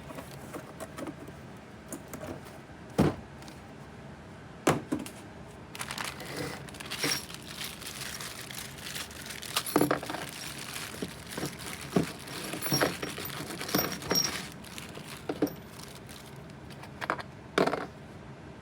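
Packaging being handled: plastic crinkling and rustling, with small metal parts clinking and a few sharp knocks, as new wheel hub assemblies and their hardware are unpacked.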